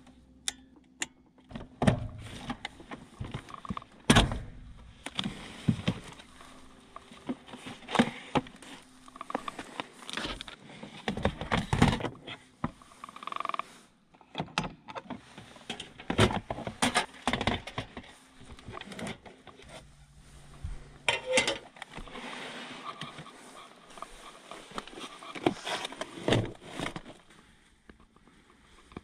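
Irregular knocks, clicks and rustling of clothing inside a car's cabin as a hanging camping lantern is handled and moved about.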